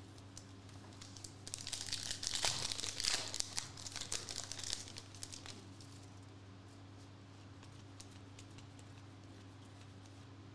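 Foil trading-card pack wrapper and cards crinkling and rustling in the hands for a few seconds, with some tearing, then settling to a few faint card clicks over a low steady hum.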